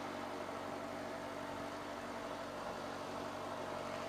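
Steady running of diesel freight locomotives out of view, shoving a cut of freight cars slowly, heard as an even hum with several steady tones.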